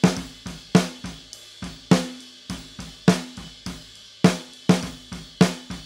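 Raw snare-drum microphone track of a drum kit playing a steady groove: sharp snare hits, each ringing briefly at a low pitch, with the kick drum, hi-hat and cymbals bleeding into the mic. It is the untreated recording, not crisp or punchy enough, before the snare is replaced with a sample.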